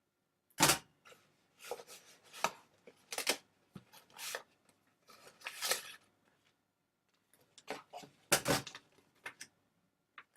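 Product packaging being handled and opened: irregular rustles, scrapes and clicks, the sharpest about half a second in and a quick cluster near the end.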